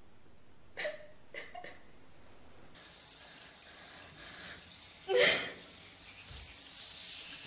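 A young woman sobbing in short catches of breath, then from about three seconds in the steady hiss of a running shower, with one loud sobbing cry about five seconds in.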